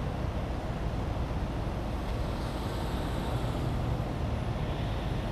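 Steady low rumble of motor vehicles and road traffic: engines running and tyre noise, with no distinct single event.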